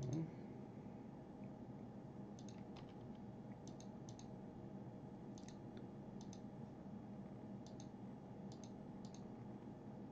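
Computer mouse clicking every second or so, faint and irregular, some clicks in quick pairs, over a steady low room hum.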